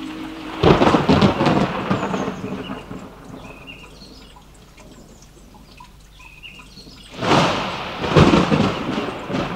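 Thunder rumbling twice. A first roll starts about half a second in and dies away over a couple of seconds, and a second roll comes about seven seconds in.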